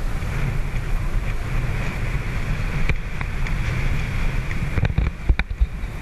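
Steady rush of wind buffeting the microphone and water moving past a catamaran under way, with a low rumble throughout. A few sharp knocks break in, one about three seconds in and a cluster near five seconds, the loudest of them.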